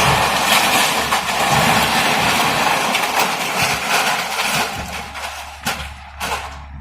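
Debris crashing down during excavator demolition of a building: a loud rush of falling material lasting about five seconds, tailing off into a few separate knocks, over the low steady running of the Komatsu PC130F excavator's engine.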